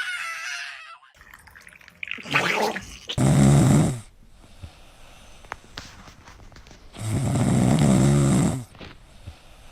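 A dog snoring loudly in its sleep: two long snores about four seconds apart, each a breath's length, with a shorter, softer breath sound just before the first.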